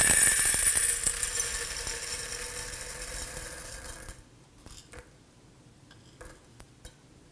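Dry macaroni pouring from a bowl into a stainless-steel food thermos: a dense rattling patter of pasta hitting metal that thins out and stops about four seconds in, followed by a few scattered clicks of last pieces.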